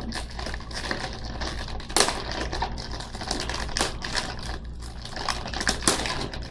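Plastic cookie package crinkling and crackling as it is handled and opened, a dense run of small crackles with a few sharper snaps.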